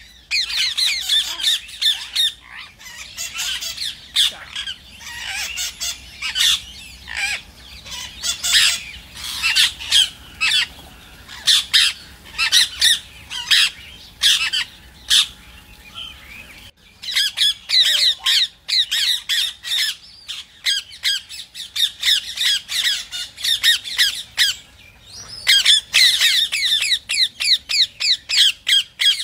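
Rose-ringed parakeet (Indian ringneck) calling in rapid runs of short, high-pitched squawks, with a sparser stretch past the middle.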